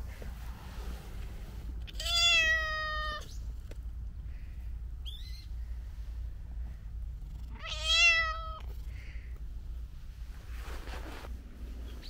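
A domestic cat meowing twice, close to the microphone. Each meow is a clear, steady-pitched call about a second long, and the second comes about six seconds after the first.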